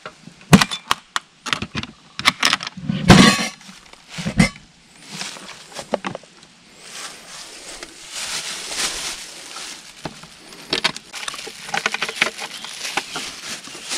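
Metal draw latches on a wooden tool-chest camp kitchen box clicking open and the lid knocking as it swings up, the loudest knock about three seconds in. Then a stretch of rustling and bottles and jars clinking as the contents and a plastic bag are handled, with more clicks near the end.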